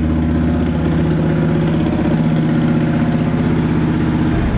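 Kawasaki Vulcan 1600 Mean Streak's V-twin engine idling through Vance & Hines offset aftermarket pipes, with a steady, fast, even pulse. It shuts off near the end.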